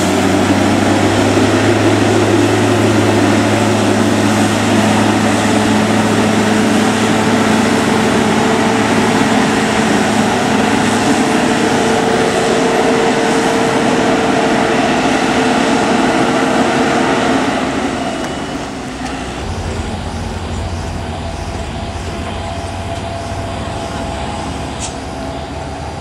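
Coach bus diesel engine working hard, a steady deep drone held at one pitch. After about seventeen seconds it drops away and a quieter, lower rumble of another bus engine takes over.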